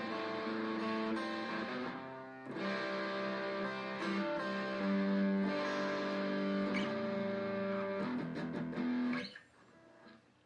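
Guitar playing slow, ringing chords that change every two seconds or so, then cuts off suddenly about nine seconds in.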